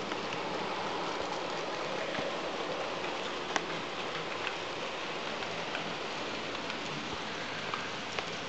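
Model passenger train of green coaches behind a model Re 4/4 I electric locomotive rolling along the track: a steady rattling rush of wheels on rails, with scattered sharp clicks, the clearest about three and a half seconds in.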